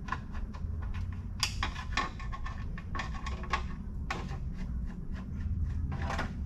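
Irregular clicks, light knocks and scrapes of a hand screwdriver and plastic parts as screws are worked out of the underside of a Razor Crazy Cart XL, over a low steady hum.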